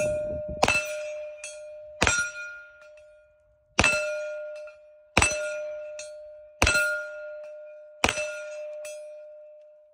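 Smith & Wesson FPC 9mm carbine firing six slow, evenly spaced shots, about one every second and a half. Each shot is followed by a steel target plate ringing with a clear tone that fades away before the next shot.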